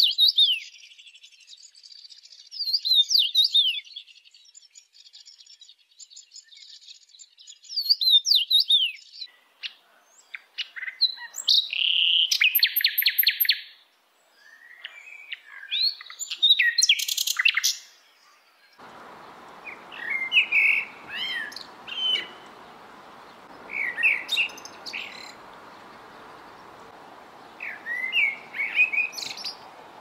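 Songbirds singing in turn, in short phrases of chirps, trills and whistles, with several abrupt changes from one bird's song to another. About two-thirds of the way through a steady hiss comes in under the song.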